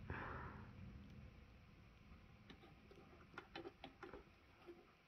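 Near silence with a few faint, scattered clicks from about halfway through: a cat's teeth biting at the hard plastic dome of a wobble-bowl puzzle feeder.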